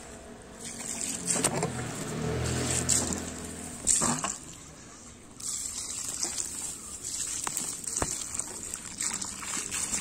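Water from a garden hose running and trickling into a muddy hole in the soil. A low hum sounds from about a second in until about four seconds.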